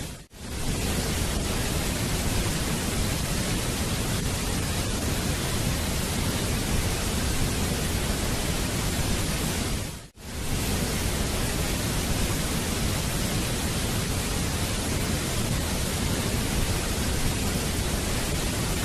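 Waterfall rushing: a steady, even wash of falling water that drops out for a moment and fades back in twice, just after the start and about halfway through.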